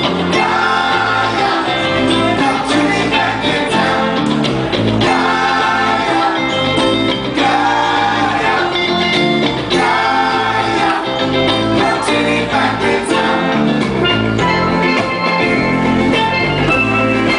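A live band playing, with a woman singing lead and a man singing backing into a second mic, over electric and acoustic guitars, keyboard, drums and steel guitar.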